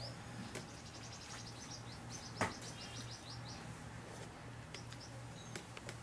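Small birds chirping: a quick run of short, high notes over the first half, with a single sharp tap about two and a half seconds in.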